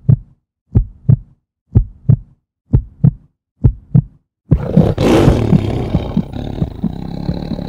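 Intro sound effects: slow, heartbeat-like double thumps, about one pair a second. About four and a half seconds in, a loud rushing roar bursts in and runs on as a heavy rumble as the treasure chest opens.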